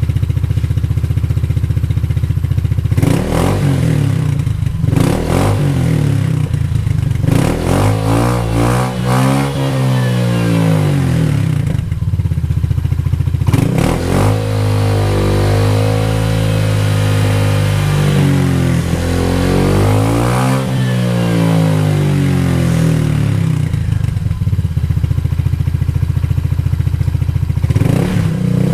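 Honda ADV 150's single-cylinder engine running through a Yoshimura exhaust with a dB killer insert fitted. It idles, is blipped several times, then revved in longer pulls that rise and fall, settling back to idle with one more blip near the end.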